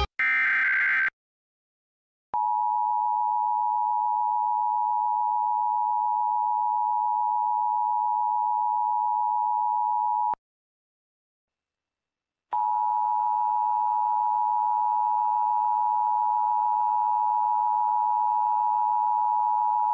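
Emergency Alert System test: a short burst of SAME header data at the start, then the two-tone EAS attention signal (853 and 960 Hz together) held steadily for about eight seconds. It cuts off, and after about two seconds of silence the same attention tone sounds again for another eight seconds with a faint hiss under it.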